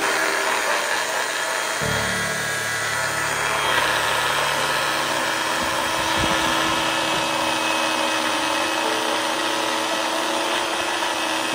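Compact countertop blender running, grinding whole walnuts into a coarse meal.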